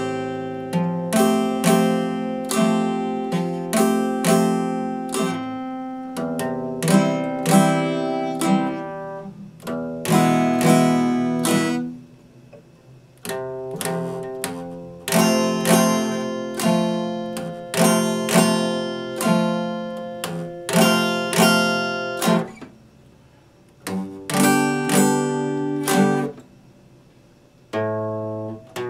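Epiphone acoustic guitar strummed, chords ringing out one after another, with a few short pauses between phrases.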